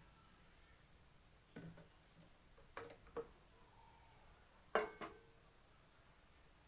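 A few light knocks and clinks of kitchen dishes or utensils being handled, about five in all, with the loudest near the end.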